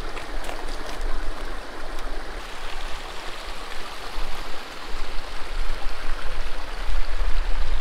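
Rushing mountain creek running steadily, an even rush of water, with a low rumble underneath that swells near the end.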